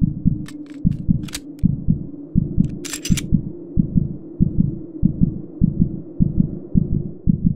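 Intro sound design: a low, rapid double-thump pulse like a fast heartbeat over a steady low hum, with a few sharp metallic clicks in the first three seconds, the brightest about three seconds in.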